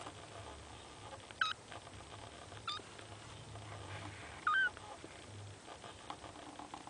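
Young kitten giving three short, high, squeaky mews, the last one the loudest and longest.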